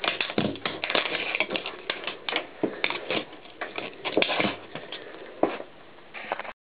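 A plastic tape cassette cracking and snapping apart under a rolling mountain bike tyre. A dense run of sharp cracks thins out after about five seconds, then the sound cuts off abruptly near the end.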